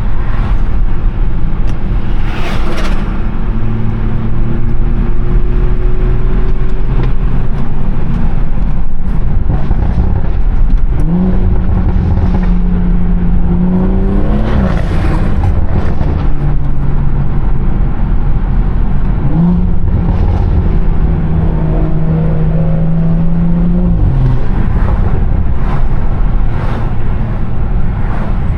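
BMW 340i's turbocharged 3.0-litre straight-six engine and exhaust running while driving. It holds a steady drone, and the engine note climbs under acceleration about eleven seconds in and again near twenty seconds, then drops off each time.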